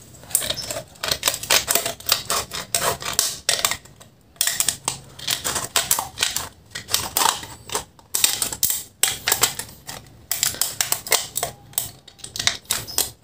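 Scissors cutting around a thin metal drink can, the sheet metal crunching and clicking in quick, irregular snips, with short pauses a few times between cuts.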